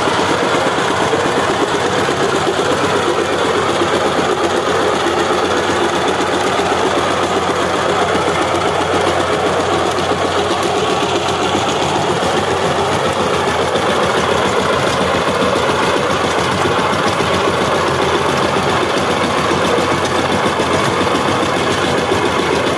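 Two-wheel power tiller's single-cylinder diesel engine running steadily at a fast, even beat while the machine drives through undergrowth.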